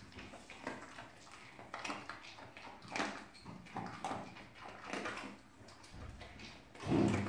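A dog eating dry kibble off a tiled floor: irregular short crunches and clicks as it chews and steps about. A louder, lower thud or snuffle comes near the end.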